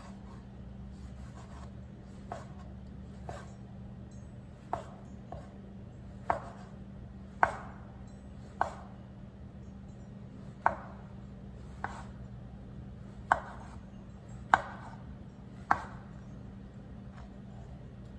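Broad cleaver-style knife slicing sausages into rounds, its blade tapping down onto a plastic cutting board. About fifteen sharp taps at a slow, unhurried pace of roughly one a second, with a short pause midway.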